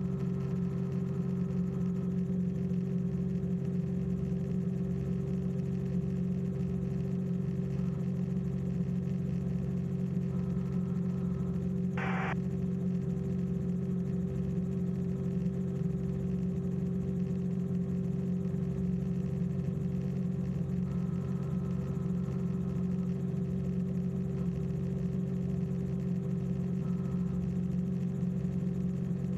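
Small aircraft's engine droning steadily, heard from inside the cabin, with one short burst of crackle about twelve seconds in.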